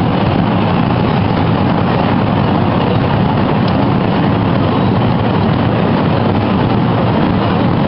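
Large crowd's steady, dense hubbub of many voices, loud and unbroken.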